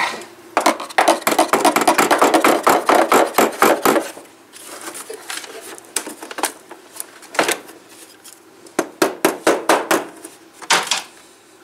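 Rapid runs of sharp clicks and clatter from hard parts being handled and worked by hand: a fast run in the first few seconds, scattered single clicks in the middle, and another run near the end.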